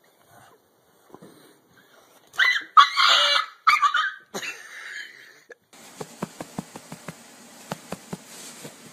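A dog and a cat squaring off, with a burst of several loud, short animal cries between about two and five seconds in. Then comes a quiet room hiss with a few faint clicks.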